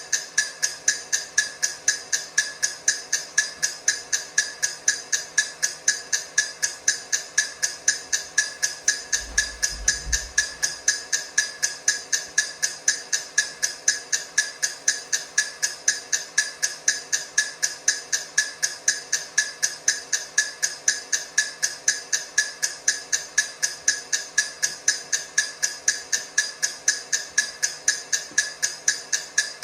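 Countdown timer ticking sound: sharp, even clock-like ticks, several a second, in a steady unbroken rhythm. A brief low thud about nine seconds in.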